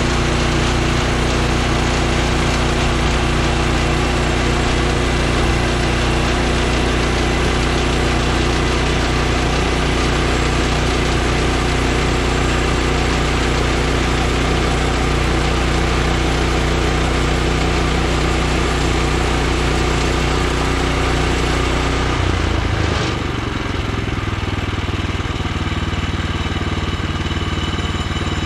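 Woodland Mills HM126 portable bandsaw mill running steadily, its gas engine driving the band blade through a log. About 23 seconds in, the engine note changes and the sound gets slightly quieter.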